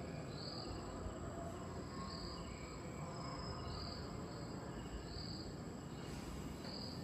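Crickets chirping in the installation's recorded soundscape, played through the wall loudspeakers: short high chirps every second and a half or so over a faint steady hiss.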